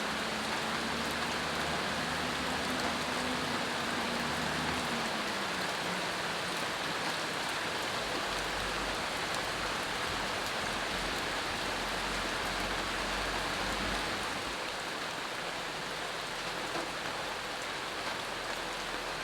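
Steady rain falling: an even hiss of drops, slightly softer from about three-quarters of the way through.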